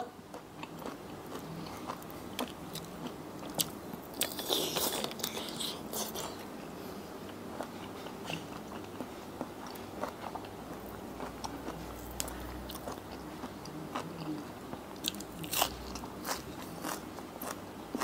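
A person chewing and biting raw shrimp in a spicy seafood salad, heard close up: wet chewing with scattered crunches, clicks and lip smacks, a denser burst about four to five seconds in.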